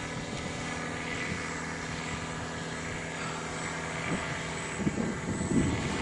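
Powered paraglider trike's engine and propeller droning steadily overhead, a constant pitched hum. Irregular low rumbles come in over it during the last couple of seconds.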